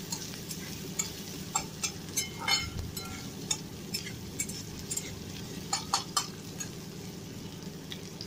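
Flat metal spatula scraping and tapping against a steel kadhai while stirring chopped onions frying in oil, which sizzle underneath. The strokes come irregularly and thin out after about six seconds.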